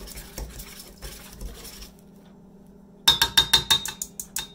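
Egg custard being whisked hard in a bowl: soft stirring at first, then from about three seconds in the utensil strikes the bowl in a fast run of ringing clinks, about six a second.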